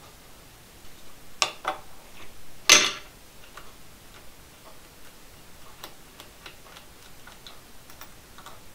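Small metal parts being handled: a clamp screw and cap being taken off an aluminium piston-ring fixture. There are two sharp clicks about a second and a half in, then a louder brief clatter of metal on metal, followed by a few faint ticks.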